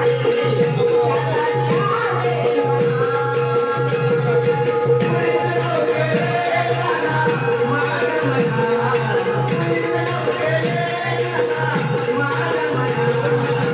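Devotional bhajan music from a Marathi bhajan group: a steady held drone note with a melody moving above it, small cymbals clicking in a fast even rhythm, and a low drum beat.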